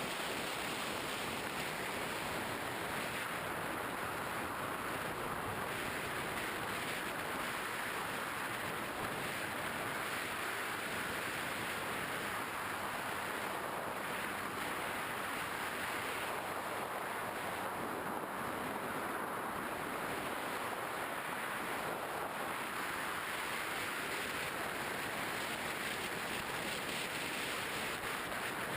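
Steady rush of air over the onboard GoPro Hero 2 camera of a Skywalker 1900 mm FPV model plane in flight: an even hiss with no distinct motor tone.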